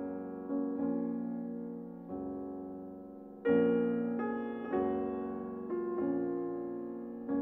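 Slow piano music: chords struck about once a second, each fading away, with a louder chord about three and a half seconds in.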